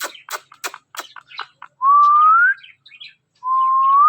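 Ringneck parrot giving a quick run of short clicking chirps, then two long whistles that rise in pitch at the end.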